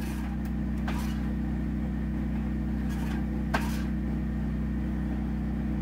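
Steady low machine hum with a few faint clicks and one sharper knock about three and a half seconds in, from handling a shotshell on a Lee Load-All 2 reloading press.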